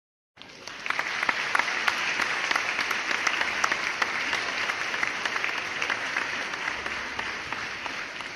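Crowd applauding, a dense patter of clapping hands that starts suddenly about half a second in and eases off near the end.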